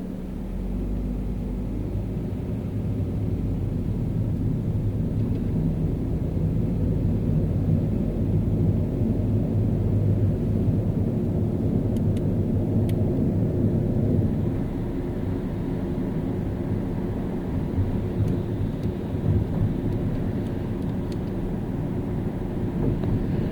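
A car driving on city streets: a steady low rumble of engine and tyres on the road, growing louder over the first few seconds.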